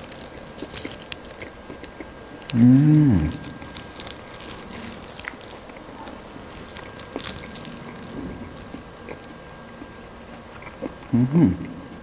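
Close-miked chewing and biting of fried chicken, with scattered small clicks and crunches. It is broken twice by a short hummed sound from the eater that rises and then falls in pitch, once about two and a half seconds in and again near the end.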